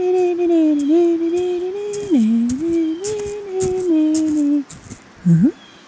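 A child's voice humming a slow, wandering wordless tune: one unbroken line that dips and rises, stopping about four and a half seconds in. A short rising sound follows near the end.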